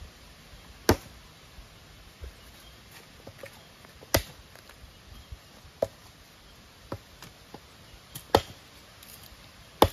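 Machete chopping dry firewood: about seven sharp, separate blows at irregular intervals of one to three seconds.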